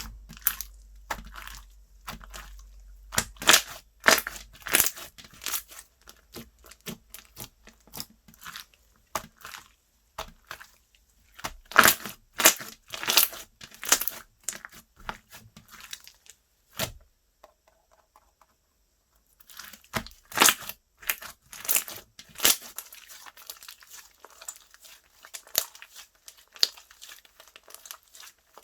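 Hands squishing, pressing and stretching slime, giving dense runs of sharp pops and crackles, with a short pause about two thirds of the way through.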